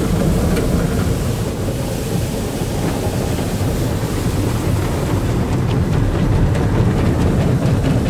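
Automatic car wash heard from inside the car's cabin: a steady rush of spray water and spinning cloth brushes against the body and windows, with faint slapping from the brushes in the second half.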